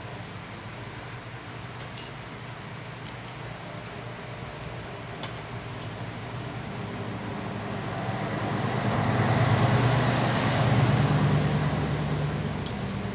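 A few light clicks and clinks of small parts or tools, over a low motor hum that swells and fades in the second half, like a vehicle passing.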